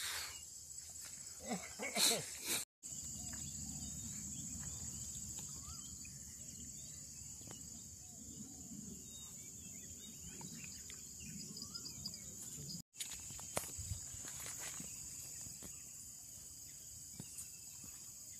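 Steady high-pitched insect chorus over a low rumble, with a few faint knocks. The sound drops out briefly twice.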